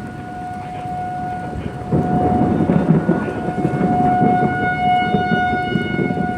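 Outdoor tornado warning siren holding one steady wailing tone, swelling in places. Underneath is a rushing of wind and rain that grows louder about two seconds in.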